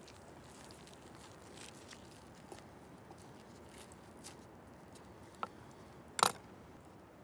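Large knife cutting into a roasted leg of lamb while the meat is pulled apart by hand: faint soft tearing and squishing with small clicks. A sharp knock stands out about six seconds in, with a smaller one just before it.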